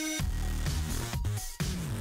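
Electronic dance music with a steady beat, briefly dropping out about one and a half seconds in.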